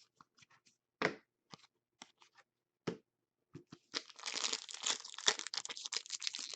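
A few light clicks from handled trading cards, then from about four seconds in a steady crinkling and tearing as a foil hockey-card pack wrapper is ripped open.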